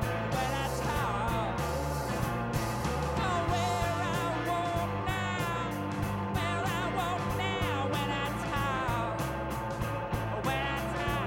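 Rock band playing live: a male lead voice sings with a wavering pitch over electric guitar and drums, with cymbals struck in a steady beat.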